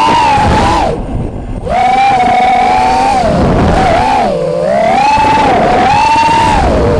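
Racing quadcopter's four Racerstar 2205 2300 kV brushless motors spinning three-blade 5-inch props, a loud whine whose pitch rises and falls with the throttle, with rushing air, heard from the camera on the quad itself. About a second in the throttle is chopped and the whine drops out for about half a second, and about four and a half seconds in it dips low again before climbing back.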